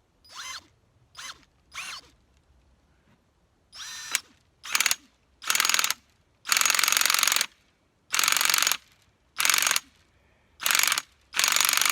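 A hand tool working the plastic sap mainline in about ten repeated rasping strokes. The first few are short and squeaky, and from about four seconds in they get louder and longer, up to a second each, roughly one a second.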